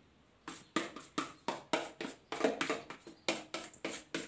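Spatula scraping cake batter off the inside of a plastic mixing bowl into a baking tin, in rapid short strokes about four a second, starting about half a second in.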